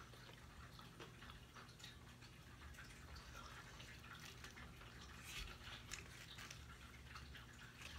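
Faint chewing of a chicken sandwich, then soft crinkling and rustling of the foil wrapper as the sandwich is set down and handled on it, with a cluster of small clicks about halfway through.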